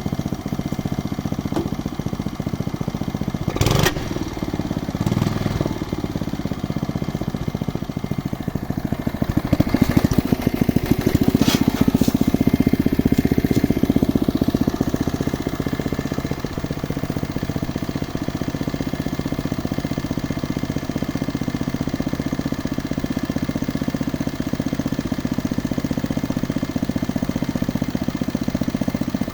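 Engine of a geological exploration drilling rig running steadily. There is a sharp knock about four seconds in, and the running grows louder from about nine to fifteen seconds before settling back.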